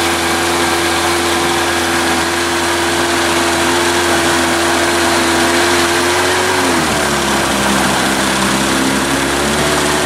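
Small boat's outboard motor running steadily underway, then throttled back about seven seconds in, its drone dropping to a lower pitch.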